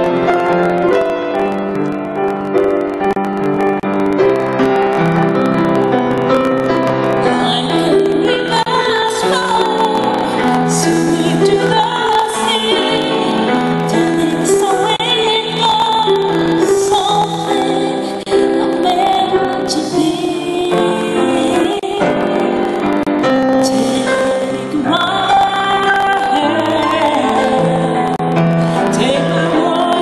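Grand piano playing chords, joined about seven seconds in by a woman singing into a microphone.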